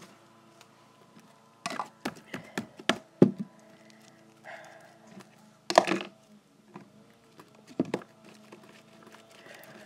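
Knocks and clacks of objects being handled and set down, several in quick succession in the second to fourth seconds, a louder one about six seconds in and another near eight.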